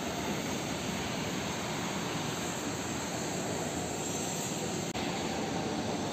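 A steady, deep rushing noise with no distinct events, and a faint click about five seconds in.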